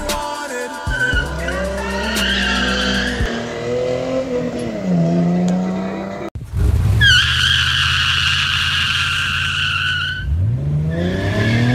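Car engine revving up and down, then a long high-pitched tyre squeal that holds steady for about three seconds before the engine revs rise again near the end.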